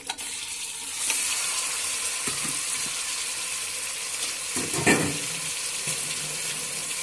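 Raw beef pieces sizzling as they hit hot oil and crushed fried onions in a pressure cooker. The steady hiss comes up about a second in, with one brief louder knock about five seconds in.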